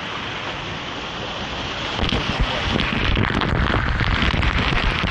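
Man-made waterfall pouring and splashing, with water crashing directly onto the microphone; the rush grows louder about two seconds in as the stream comes down over it.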